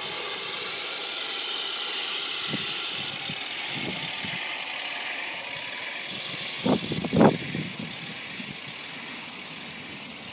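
Full-metal radio-controlled Tiger tank driving on grass: a steady hissing whine from its running gear that slowly fades as it moves away. About two-thirds of the way through, a short cluster of loud thumps.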